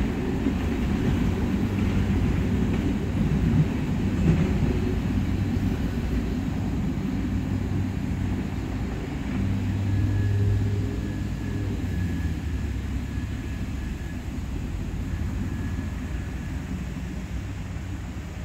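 Freight train of loaded tank cars rumbling away on the rails, its low noise slowly fading as the end of the train recedes. A faint steady high tone comes in about ten seconds in and lasts several seconds.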